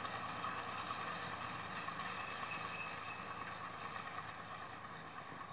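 Ursus C-360-3P tractor's three-cylinder Perkins diesel running steadily under load while pulling a rotary hay rake, heard from a distance and slowly fading toward the end.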